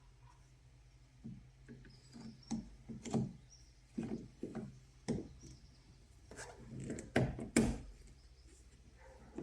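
Irregular clicks and knocks of a car's exterior door handle and its plastic trim being handled and worked loose or fitted. The strokes come unevenly over a faint steady hum, with the loudest pair near the end.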